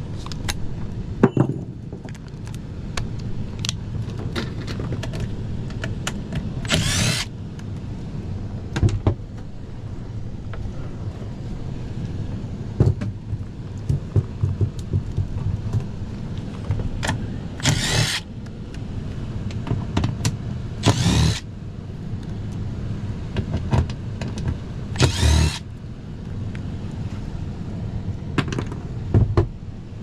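Air handler's indoor blower running with a steady low hum, over small clicks and handling noises, and four short whirring bursts from a small motor or tool spread through.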